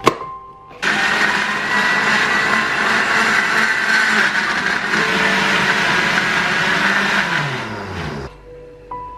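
Electric blender grinding shallots, garlic and other spices with a little water into a rendang spice paste. The motor starts about a second in and runs steadily for about seven seconds, then switches off and spins down with a falling whine.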